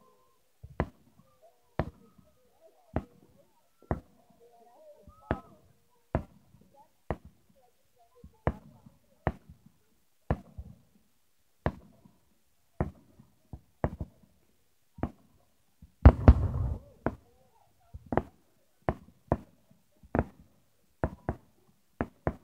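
Fireworks going off: a steady string of sharp bangs and pops about once a second, with one much louder, longer blast about two-thirds of the way through.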